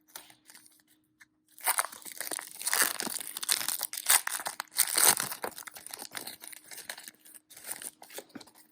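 Trading card packs being torn open and their wrappers crinkled by hand: a run of tearing and rustling that starts about a second and a half in.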